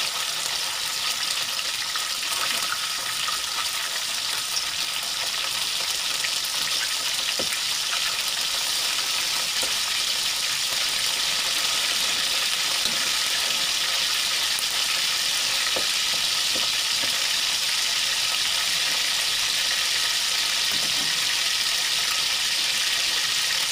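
Battered fillet pieces deep-frying in hot oil: a steady, even sizzle with a few faint pops.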